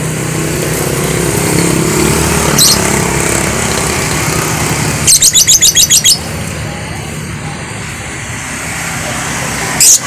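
Caged lovebird giving a rapid, shrill run of about ten chirps in a second, halfway through, with a single short call a little earlier and another burst of chirps starting near the end. Under it a passing motorbike engine runs over street traffic, fading after the first few seconds.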